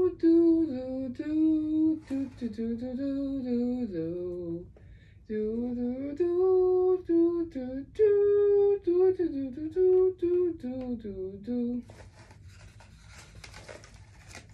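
A woman humming a wordless tune in steady stepped notes, breaking off briefly about five seconds in and stopping about twelve seconds in. After that, faint rustling and clicks as paper cut-out puppets are handled behind a cardboard puppet stage.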